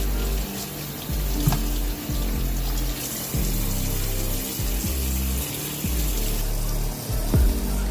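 Kitchen tap running into a sink while raw chicken is washed, under background music with held notes and a bass line. A few light knocks sound against the sink.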